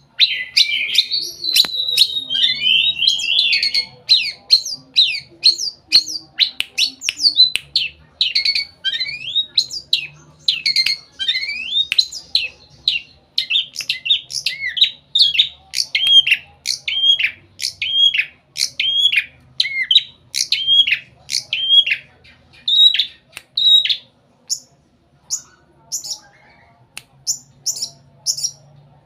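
Caged long-tailed shrike (pentet) singing a long mimicking song: a fast, jumbled run of varied whistles and glides, then from about halfway a repeated hooked whistle about twice a second, and near the end short sharp high chips in small groups.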